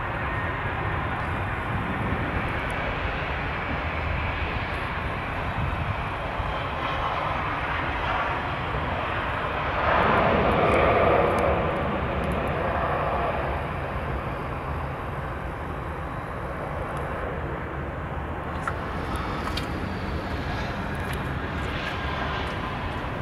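Jet engine noise from a Boeing 737's twin turbofans as the airliner passes along the runway: steady, swelling to its loudest about ten seconds in, then fading back to a lower steady rumble.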